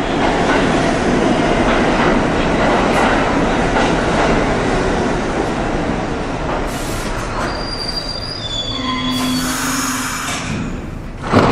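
Subway train running along the rails with a steady rumble and some wheel squeal, and a few brief whining tones about eight to ten seconds in.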